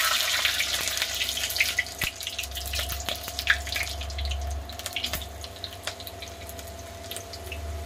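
Whole garlic cloves sizzling and crackling in hot mustard oil with whole spices in a kadhai. The sizzle starts suddenly and loudly, then settles into a lighter, popping sputter.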